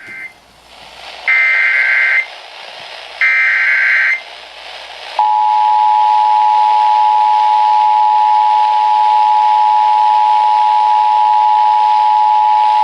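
Emergency Alert System tones. First come bursts of SAME header data, each about a second long and heard as a harsh two-pitch buzz: the tail of one, then two more, with hiss between them. About five seconds in, the steady two-tone EAS attention signal starts and holds.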